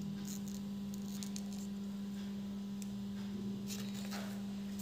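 A steady low hum runs under faint rustles and light taps of stiff paper being handled, with a brief rustling scrape about four seconds in.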